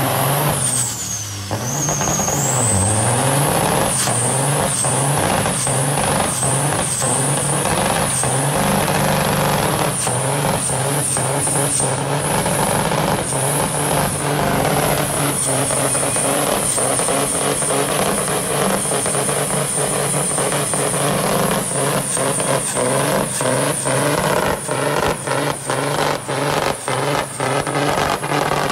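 Peterbilt semi truck's turbocharged, straight-piped diesel engine held at high revs during a burnout, blowing black smoke. The revs dip about a second in, then climb and hold. A high warbling whine runs over the engine, and frequent sharp cracks come thicker toward the end.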